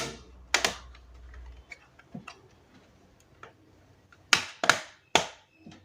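Plastic bottom cover of a laptop being pried open, its clips snapping loose with sharp clicks: two near the start, light ticks in between, and three loud snaps close together about four seconds in.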